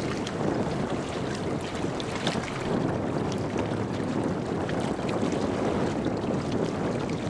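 Wind buffeting the microphone and small harbour waves lapping, over a steady low drone from the car ferry New Nagato's engines running.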